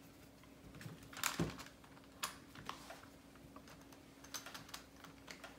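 Scattered light plastic clicks and taps as a Traxxas 4-Tec RC car chassis and its wheels are handled and set down, with a small cluster of clicks about a second in. A faint steady hum underneath.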